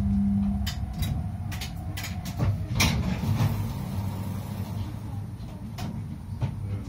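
Tram rumbling low and fading away as it brakes to a stop, with a series of sharp clicks and knocks, the loudest about three seconds in.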